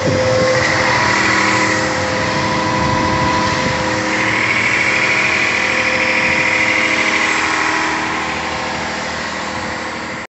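Landa VNG4-3000C/LP pressure washer running with a steady hum from its 460-volt electric pump motor under a broad hiss from the spray wand in use. It eases off slightly near the end.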